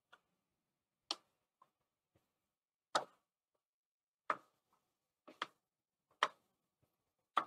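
Irregular sharp pops and crackles, about seven in all, from goulash meat and freshly added onions frying in a hot pot on high heat.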